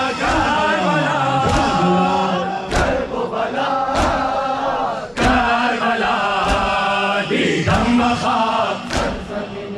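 Crowd of Shia mourners chanting a noha in unison, with rhythmic matam: many hands slapping chests together about once every second and a quarter.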